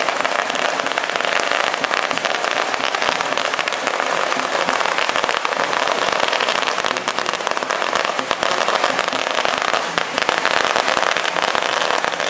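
Strings of firecrackers going off in a dense, continuous crackle of rapid pops.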